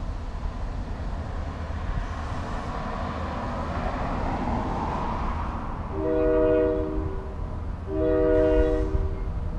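Freight train's diesel locomotive approaching with a low rumble, then sounding its chord air horn in two blasts of about a second each, about six and eight seconds in.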